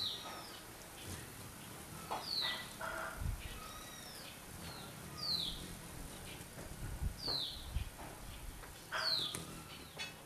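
A bird repeating a short, high call that slides downward in pitch, about once every two seconds, with a few low thumps in between.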